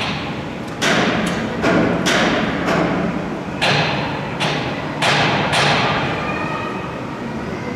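A hammer strikes the metal fittings of a lifting jig being seated in an EF65 electric locomotive body, knocking them square. There are about nine uneven blows, each with a brief ringing tail, and they stop about five and a half seconds in.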